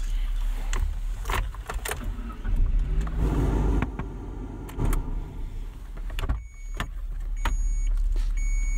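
Inside a car with its engine running: a steady low rumble with scattered clicks and knocks as the passenger door is handled and opened. In the last couple of seconds a short high electronic beep repeats about once a second, the car's warning chime.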